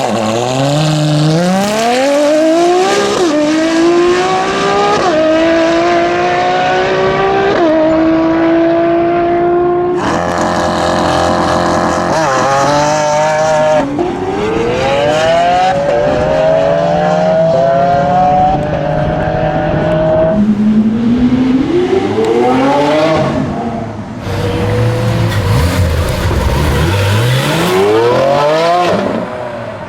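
V12 supercar engines accelerating hard, several separate runs one after another. Each time the pitch climbs through a gear and drops at each upshift, three quick upshifts in the first run.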